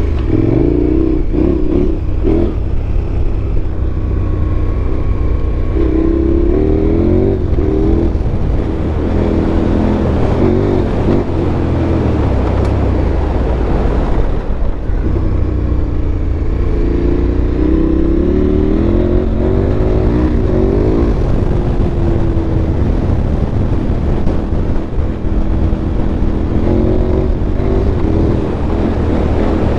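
KTM 1290 Super Adventure's V-twin engine under load as the motorcycle is ridden off-road at pace, its pitch rising and falling again and again as the throttle is opened and closed.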